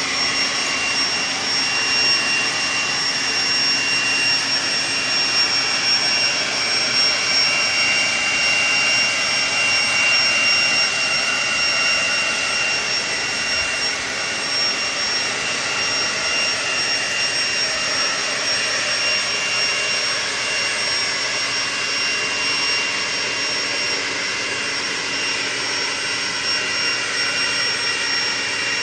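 Leaf blower running steadily: a continuous rushing of air with a high, steady whine.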